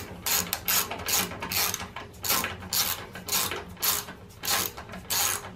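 Hand ratchet tightening the tank's mounting bolts on a motorcycle, in an even run of short clicking strokes, about three to four a second.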